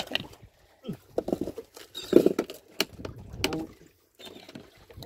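Irregular handling noises: scattered knocks, taps and rustles with short quiet gaps between them.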